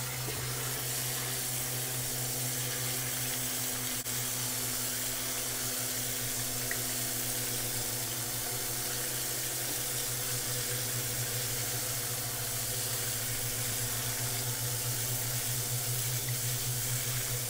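Water from a pull-out faucet sprayer running steadily through a fine-mesh strainer of raw mixed grains into a sink, rinsing them. A continuous, even splashing hiss.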